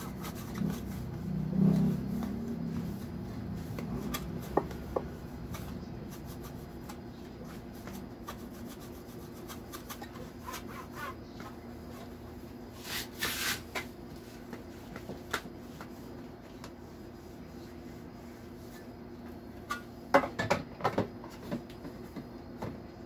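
Cloth rubbing over a clear plastic refrigerator tray as it is wiped clean, with scattered small plastic clicks. There is a louder brief scrape about halfway through and a few sharp plastic knocks near the end.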